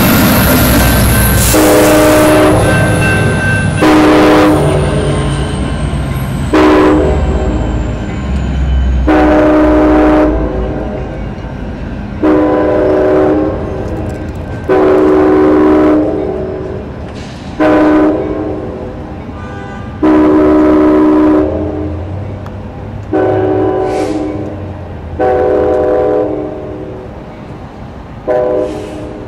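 Amtrak F59PHI locomotive's five-chime air horn blowing about eleven blasts, some long and some short, in repeated grade-crossing signals, each a little fainter as the train pulls away down the street. During the first couple of seconds the locomotive's engine and wheels rumble close by, with a falling high whine.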